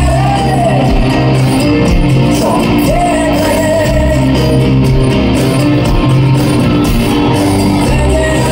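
Live rock band playing: a male singer over electric guitars and drums.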